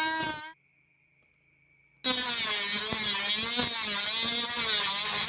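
Small brushed DC motor (an RS380) of a homemade mini grinder whining at high speed with a cutting disc. The whine drops and cuts off in the first half second, then after a short silence starts again about two seconds in, its pitch wavering as the disc cuts into a thin metal rod.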